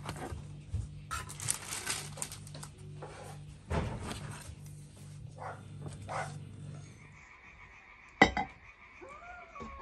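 Rustling and soft knocks as round baked breads are set into a wicker basket, then a sharp clink as a glass tea cup is set down on a saucer about eight seconds in. A short animal call rising and falling in pitch follows near the end.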